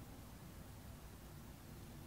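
Near silence: a faint, steady low rumble of outdoor background.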